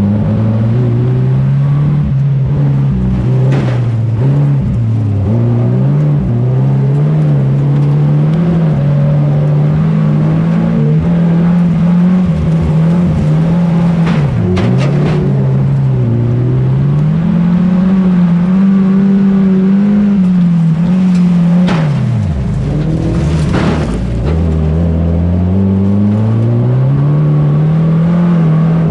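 Saloon stock car engine heard from inside the cabin, its revs rising and falling in a repeating pattern. About three quarters of the way through, the revs drop sharply and then climb back. A few sharp knocks sound over it.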